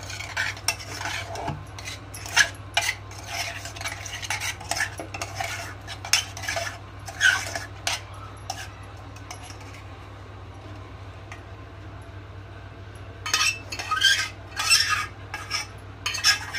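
Metal spoon stirring and scraping boiled sweet corn kernels coated in chutney in an aluminium pot: irregular clinks and scrapes against the pot. They ease off past the middle, then come thick and fast again near the end.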